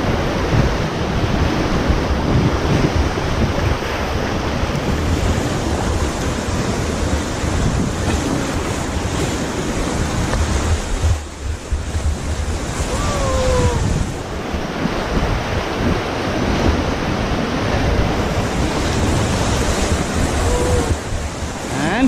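Whitewater rapid rushing and churning loudly around an inflatable raft, with wind buffeting the microphone. The roar briefly drops about eleven seconds in.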